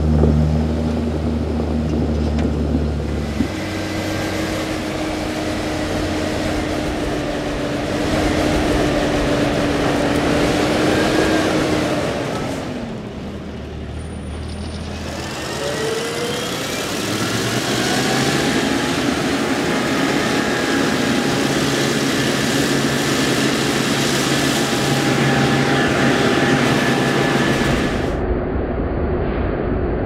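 Heavy farm machinery running: first a tractor engine pulling a silage trailer, then, from about halfway on, a Claas Jaguar 860 self-propelled forage harvester running under load as it chops standing maize.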